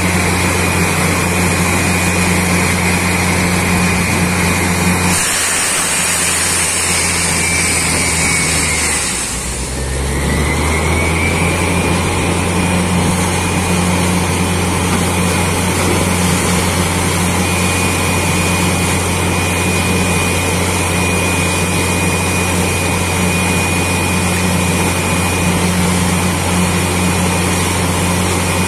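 Truck-mounted borewell drilling rig running under load: a steady heavy engine and air-compressor drone with a high whine as the drill bores and air blows water and cuttings out of the hole. About a fifth of the way in the drone drops away under a hiss, then near a third of the way the whine dips and climbs back to full speed.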